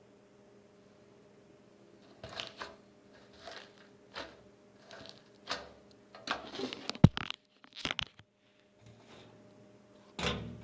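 Homemade slime being squeezed, stretched and pulled apart by hand: a run of irregular crackly squishes starting about two seconds in, with one sharp click partway through.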